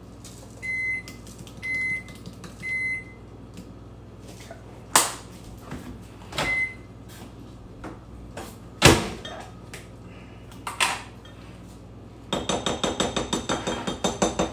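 Microwave oven beeping three times, about a second apart, the signal that its cycle has finished. Then the door clicks, another single beep sounds, and there is a knock as a dish is handled. Near the end comes quick, even scraping of a spatula stirring in a bowl, about six strokes a second.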